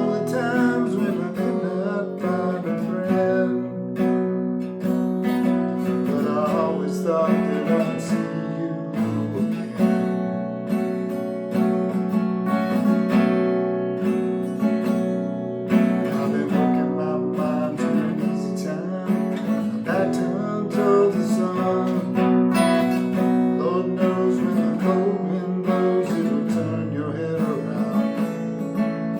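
Solo acoustic guitar playing an instrumental passage, strummed and picked chords with no singing.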